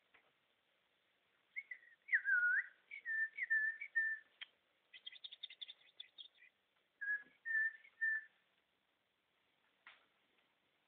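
Caged parrots whistling: a string of clear whistled notes, some sliding up or down, broken in the middle by a burst of rapid chatter. A single click comes at the start and another near the end.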